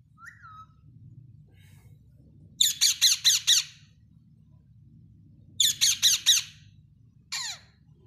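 Rose-ringed parakeets screeching. A short whistle comes right at the start, then two quick runs of about five harsh calls each, around three and six seconds in, and a single call near the end.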